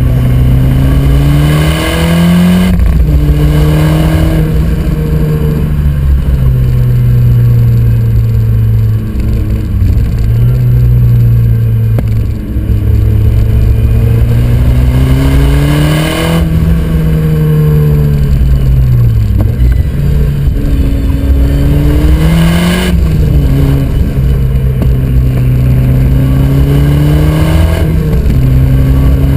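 Ford Escort RS Cosworth's turbocharged four-cylinder engine under hard load, its revs climbing and falling through the gears. There are several gear changes, each marked by a brief rush of noise, and one dip in revs about twenty seconds in.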